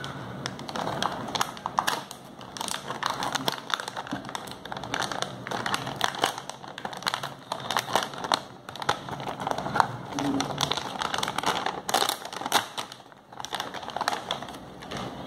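Metallized anti-static shielding bag crinkling and crackling as it is opened and crumpled around a circuit board, in irregular sharp crackles, louder for a moment about twelve seconds in.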